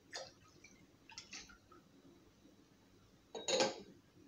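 Kitchen glassware handled as a glass of milk is poured into a glass mixing bowl: a few light clinks, then a louder clatter about three and a half seconds in.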